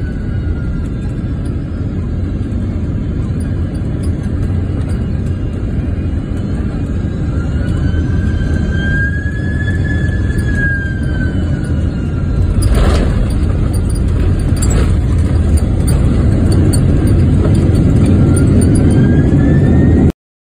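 Jet airliner landing, heard from inside the cabin: a heavy rumble with the engines' whine sliding up and down in pitch. Two knocks come about two-thirds of the way through, and the rumble grows louder on the runway rollout.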